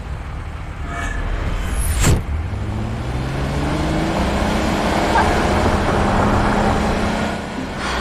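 Car engine accelerating, its pitch rising steadily over several seconds, with a sharp knock about two seconds in.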